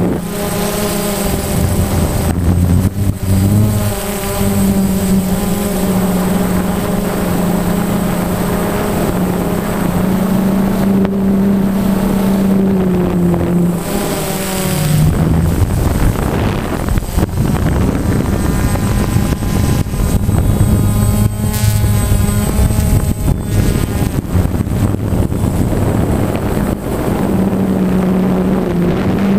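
DJI Phantom quadcopter's motors and propellers buzzing steadily, heard close-up from the camera mounted on the drone itself. About halfway through, the buzz bends down in pitch and fades under a rushing noise, then comes back near the end.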